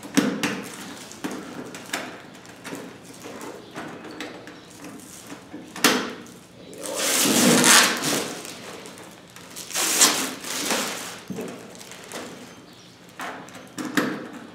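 Hands working a plastic paper towel dispenser and its key: scattered clicks and knocks on the plastic housing, with longer rustling scrapes about seven and ten seconds in.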